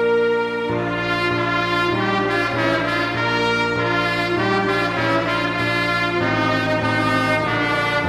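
Instrumental music in a brass sound: held chords moving in steady steps, about two a second.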